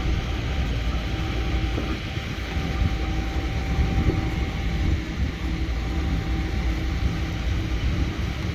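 Heavy diesel machinery running steadily: a deep engine rumble with a faint steady whine through the first half.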